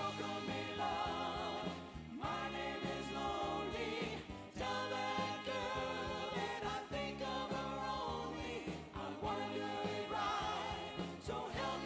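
Oldies show band playing a 1950s–60s style song, with voices singing in harmony over the band.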